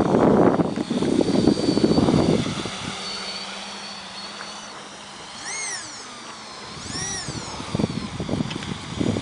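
Small RC quadcopter's electric motors and propellers whirring. The sound is louder and rougher at first, quieter in the middle, and rougher again near the end, with the motor whine rising and falling twice in the middle.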